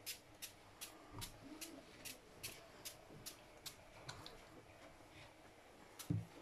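Trigger spray bottle being pumped over and over, a short faint spray about two or three times a second, thinning out after about four seconds. A low thump comes near the end.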